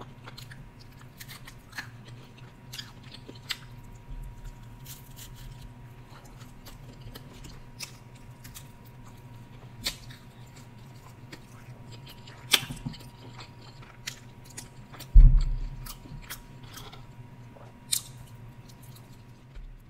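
A person chewing deep-dish pizza up close, with faint, scattered wet mouth clicks and bites. There is a loud dull thump about 15 seconds in.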